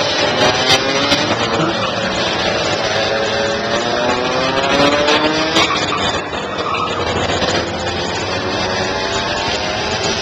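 Several racing kart engines running hard at high revs, overlapping as the karts pass one after another. Their pitch climbs as they accelerate and drops as each goes by.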